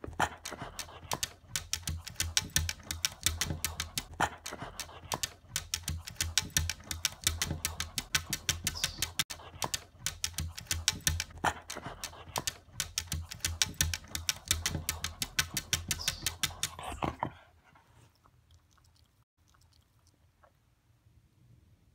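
Dog going at a bug on a window, with a rapid, dense run of clicks and taps from its teeth and nose against the glass. The clicking stops abruptly about seventeen seconds in, leaving only a few faint ticks.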